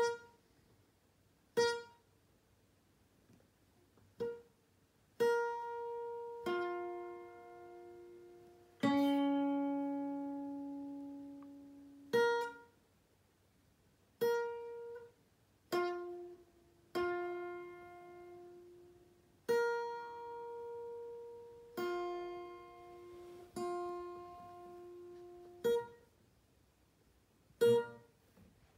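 Single notes plucked one at a time on a guitar, irregular and a second or more apart, about fifteen in all. Some ring on for a few seconds and others are cut short.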